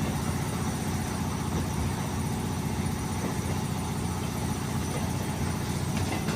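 A train's engine running steadily at the station: an even, low rumble with no change in pitch.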